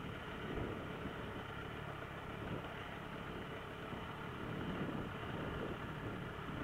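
Enduro motorcycle engines running, rising and falling slightly.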